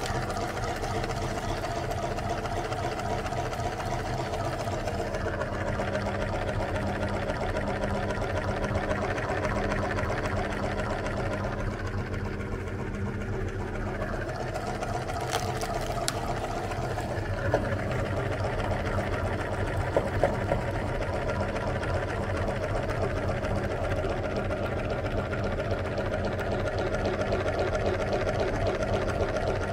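Motor-driven meat grinder running steadily with a steady hum while it grinds ice cream bars into a runny paste. A few sharp clicks come around the middle.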